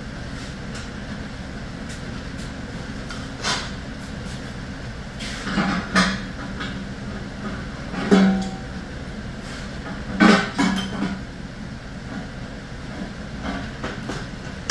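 A handful of sharp metal clanks and knocks from a diamond-plate steel box being handled, several ringing briefly, over a steady hum.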